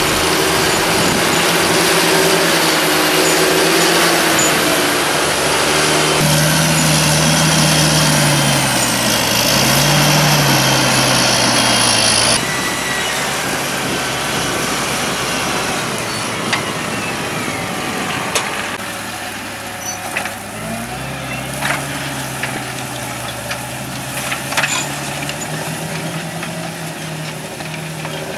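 Diesel engines of farm tractors at work, the engine note rising and falling under changing revs, with abrupt shifts in the sound about six and twelve seconds in. A few short knocks in the second half.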